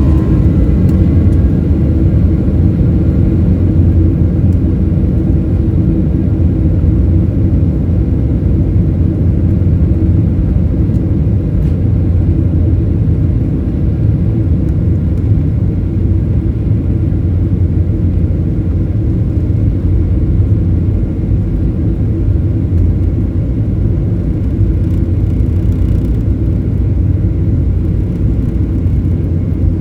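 Steady low rumble of a Boeing 737's jet engines and the rush of air, heard from inside the cabin during take-off. It eases slightly in level about halfway through.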